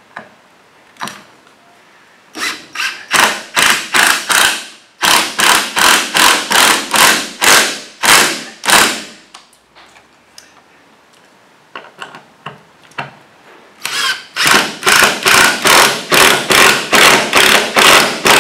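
Cordless drill-driver running in short repeated bursts, about two or three a second, as it drives screws into wooden planking. There are two long runs of bursts, one starting a couple of seconds in and one from about two-thirds through, with a few light knocks between them.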